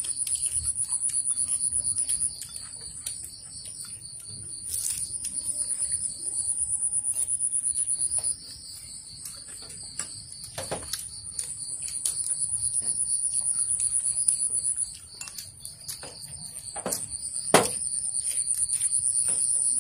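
Insects trilling in high-pitched, rapidly pulsing bouts that stop and start again several times, with occasional sharp clicks of chopsticks and porcelain bowls. The loudest click comes near the end.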